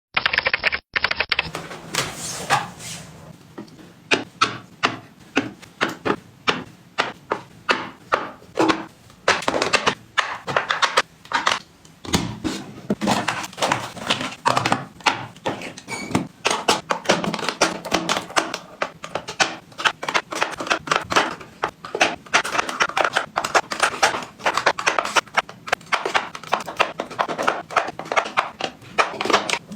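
Irregular clicks, taps and knocks of small items being handled and set down, several a second.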